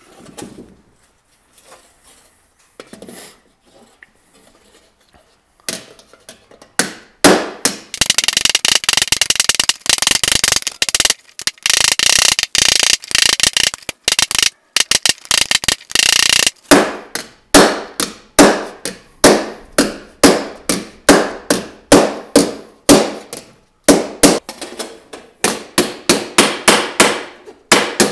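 Ball-peen hammer striking a mild-steel (14-gauge) helmet shell to smooth and round it. After a few quiet seconds, a fast run of light taps starts, and then it changes to steady separate blows, about two to three a second, each with a short metallic ring.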